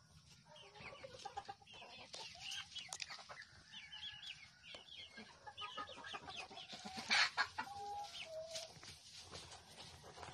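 A flock of backyard chickens clucking and giving short calls over one another as they feed on a bunch of cassava leaves. The busiest, loudest calling comes about seven seconds in.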